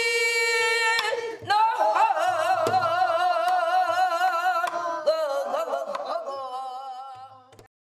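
A woman singing solo in Korean pansori style, long held notes with a wide wavering vibrato and sliding pitch. The singing breaks off shortly before the end.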